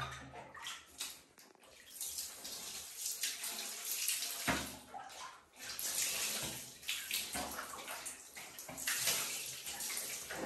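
Water spraying from a shower sprayer onto a monkey being bathed: an uneven hiss that surges and dips, with brief lulls about one and a half seconds in and again around five and a half seconds.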